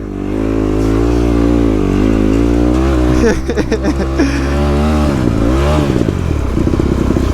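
Dirt bike engine running, its pitch rising and falling with the throttle, then settling lower about six seconds in.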